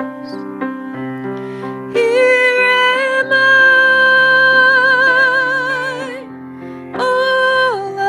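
Solo woman singing a hymn with grand piano accompaniment. The piano plays alone at first; about two seconds in she comes in and holds one long note with vibrato, then after a short piano gap sings a brief note that drops in pitch near the end.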